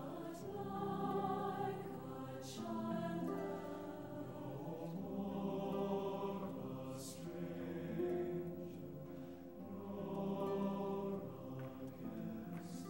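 Background music: a choir singing slow, held chords that change every couple of seconds.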